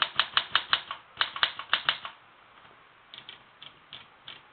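1918 Corona 3 typewriter mechanism clicking rapidly and evenly, about six clicks a second, with a short break, stopping about two seconds in; a few fainter clicks follow near the end.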